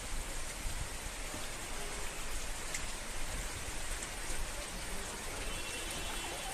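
Steady rain falling: an even hiss, with now and then a single drop ticking.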